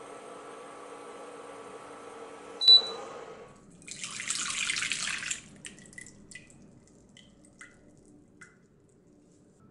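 A steady electric appliance hum stops with a sharp click about two and a half seconds in. About a second later a kitchen tap runs briefly into a sink, followed by a few small drips and ticks.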